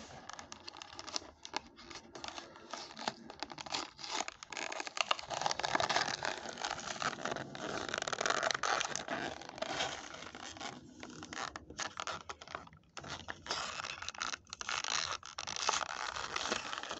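Clear plastic blister pack of a die-cast toy car crackling and scraping as it is peeled and torn away from its cardboard backing card; a continual run of small crackles, loudest around the middle.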